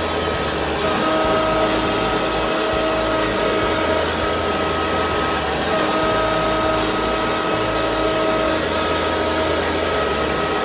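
Shapeoko CNC router pocketing out wood, its trim router spinning at speed setting 3, together with a Fein Turbo I shop vacuum pulling dust through the dust boot. A steady whine over a rushing noise, with a low hum that shifts in pitch every second or two as the machine moves.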